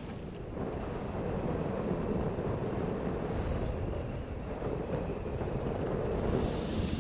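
Wind rushing over the microphone in a steady low rush, heard while riding an open chairlift.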